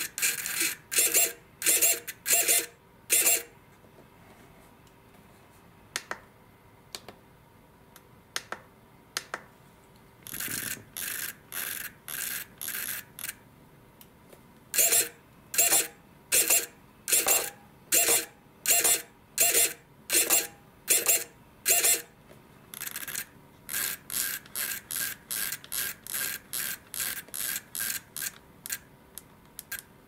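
Blue Bird 115HV servo, a conventional servo without a Hall sensor, driving its arm through full travel. Each movement gives a short burst of high-pitched motor and gear whine. The bursts come in runs, with a few pauses, and are quickest near the end.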